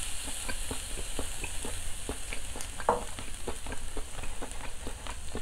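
Marinated pork neck galbi sizzling on the grate of a small charcoal grill: a steady hiss with many irregular small crackles and pops, and one louder short sound about three seconds in.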